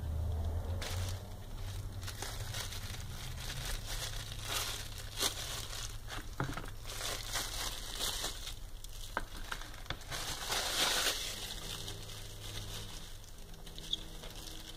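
Clear plastic bag crinkling and rustling as a fixed-blade knife is handled and pulled out of it, loudest about ten seconds in.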